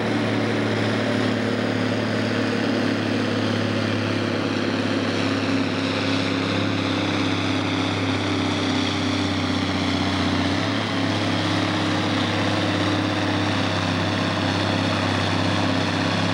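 Farm-stock pulling tractor's diesel engine running hard under full load as it drags the weight sled, a steady drone with black exhaust smoke pouring from the stack.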